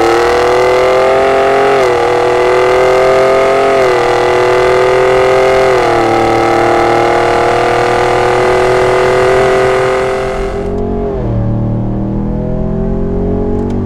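Borla aftermarket exhaust on a 2017 Ford F-150 Raptor's 3.5-litre twin-turbo EcoBoost V6, heard while the truck accelerates. The pitch climbs and dips briefly about every two seconds as it shifts up. About ten seconds in, the sound drops to a lower, duller hum heard from inside the cab, showing the exhaust's lack of cabin drone.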